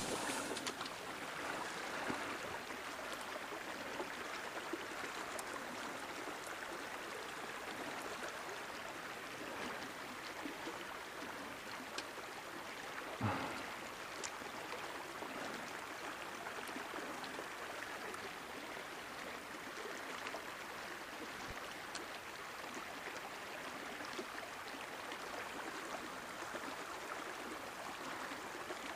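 Small shallow river running steadily over its bed, a continuous rush of water with a few faint ticks. A brief louder thump about 13 seconds in.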